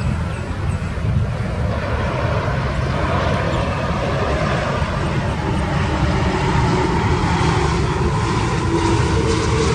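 Jet airliner on final approach with landing gear down: steady engine rumble and rushing noise, with a humming engine tone coming in during the second half as the aircraft draws nearer.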